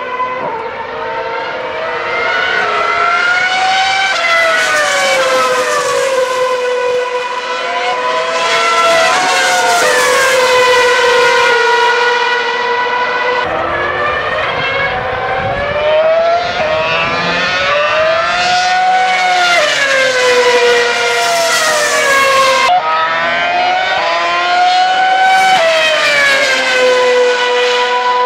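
Formula One cars with 2.4-litre V8 engines running at high revs as they pass one after another. Each pass brings a rising and then falling engine pitch, about five times.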